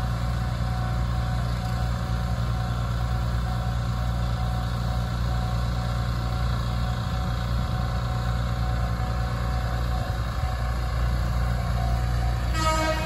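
Japanese railway level-crossing warning bell ringing on and on over a low, steady engine rumble, with a short higher tone near the end.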